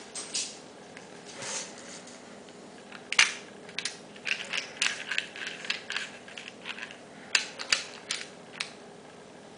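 Small metal field-target mechanism being worked by hand, giving irregular sharp metallic clicks and snaps. The loudest snap comes about three seconds in, and a quick flurry of smaller clicks follows about a second later.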